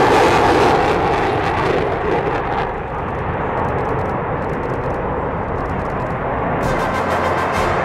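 Eurofighter Typhoon jet fighter's twin engines running in afterburner during a tight display turn: a loud, rushing roar that is strongest in the first two seconds and then eases off somewhat.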